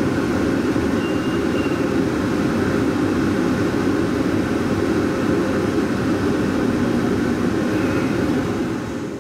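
Cabin noise inside an airport automated people-mover shuttle train: a steady low rumble and hum as it moves slowly or stands at the platform, fading out near the end.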